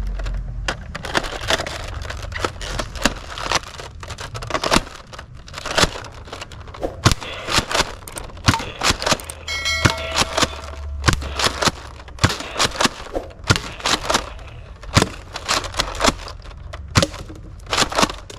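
Nerf Elite Delta Trooper dart blaster being primed and fired over and over: a quick irregular run of sharp plastic clacks and pops from the priming slide and the shots. A short electronic chime sounds about halfway through.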